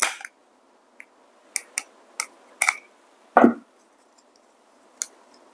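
Small clicks and scrapes of a screwdriver and a small 3D-printed plastic declumper part being handled and fitted while it is screwed in: about half a dozen sharp ticks spread out, with a louder, duller knock about three and a half seconds in.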